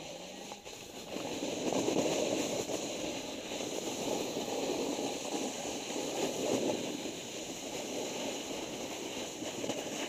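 Snowboard bases sliding and carving over packed snow, a steady rushing scrape that grows louder about a second in and then keeps going, swelling a little with the turns.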